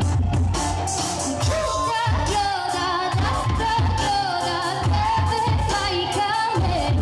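Live Bulgarian folk band: a woman sings a wavering, ornamented melody over accordion and a steady drum beat. The voice comes in about a second and a half in, over the instruments.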